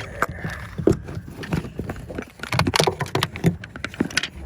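Irregular clicking and knocking of hand tools and parts being handled in a car's engine bay, with a busier cluster of clicks a little past the middle.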